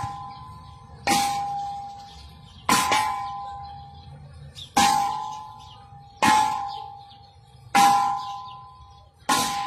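Bare-fisted punches on a hanging steel gas cylinder, six clanging strikes about a second and a half apart. Each hit rings like a bell with two clear tones that die away before the next blow.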